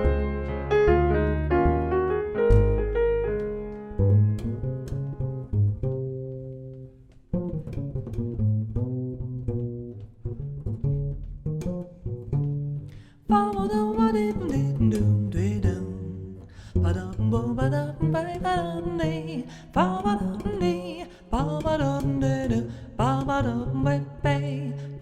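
Acoustic jazz with a plucked double bass walking and soloing under piano chords. About halfway through, wordless voices come in, sliding and bending in pitch like scat singing.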